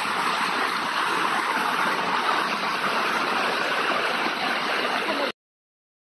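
Small rocky stream splashing down between boulders in little cascades, a steady rush of water that cuts off abruptly a little over five seconds in.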